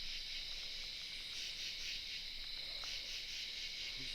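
Steady, high-pitched chorus of night insects such as crickets, trilling without a break.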